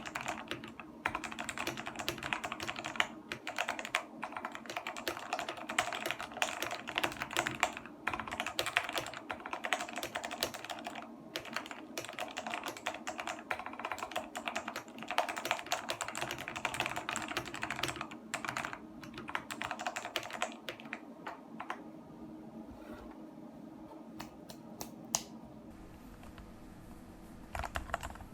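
Typing on a mechanical keyboard with tactile Jailhouse Blue switches: a fast, dense run of clacking keystrokes that thins to sparse, quieter presses in the last several seconds.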